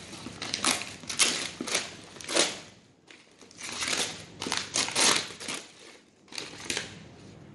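Brown paper wrapping being torn and crumpled off a cardboard box by hand, a run of rustling rips with brief pauses about three seconds in and again near six seconds.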